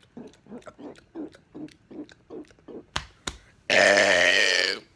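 A man's burp lasting about a second near the end, the loudest sound here. Before it come soft, short mouth sounds about three a second and two sharp clicks.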